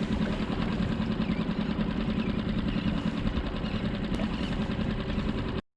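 Mercury 6 hp outboard motor running steadily at trolling speed, an even low hum with a fine rapid pulse. It cuts out abruptly for a split second near the end.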